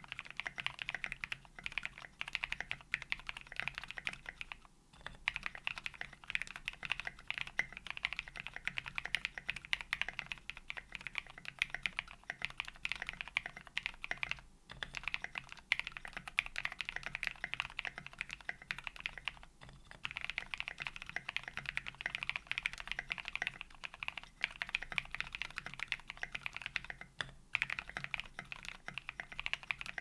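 Steady typing on a TX60 custom mechanical keyboard with a brass plate, lubed linear switches (Kailh Pro Berry stems in MX Black housings) and SA-profile keycaps: dense, rapid keystrokes with a few short pauses.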